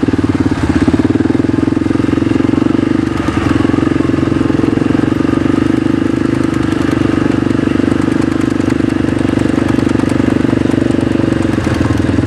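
Off-road vehicle engine (ATV or side-by-side) running at a steady speed close by, with a fast, even pulse and unchanging pitch.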